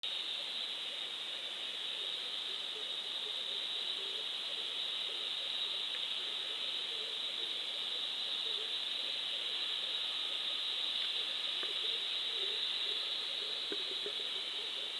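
Steady hiss with a constant high-pitched band through it and faint soft blips lower down.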